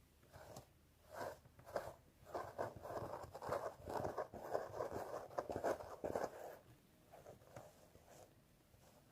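Fingernails scratching through hair on a scalp in repeated rustling strokes. A few separate strokes come first, then a quicker, louder run in the middle, easing off to faint scratches near the end.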